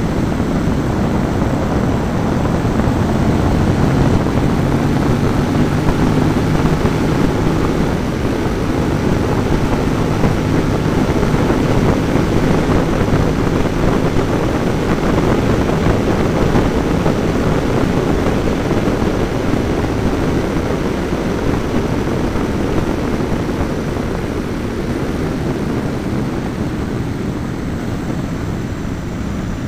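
Ducati Monster S4's V-twin engine running at steady road speed, heard close up from the radiator cap, mixed with constant wind and road rush. The sound eases a little near the end.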